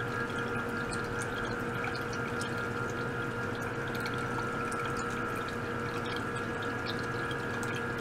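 Small liquid-circulation pump running steadily and pushing water through plastic tubing into a plastic tank, with water trickling and bubbling, scattered tiny crackles and a constant hum with steady whining tones. The pump is circulating water mixed with degassed fine bubbles.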